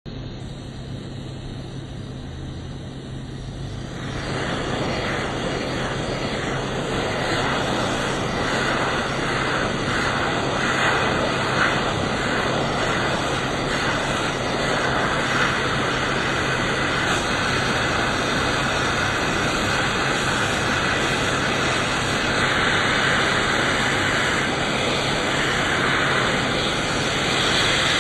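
Hot-air rework gun blowing steadily, a hiss that gets louder about four seconds in, over a steady low electrical hum.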